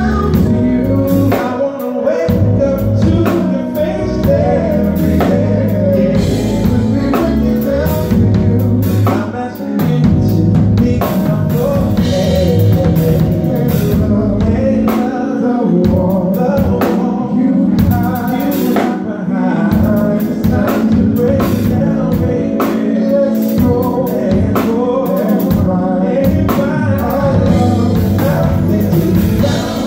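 Live band playing with male vocalists singing lead over keyboard, drum kit and bass guitar, with drum hits keeping a steady beat.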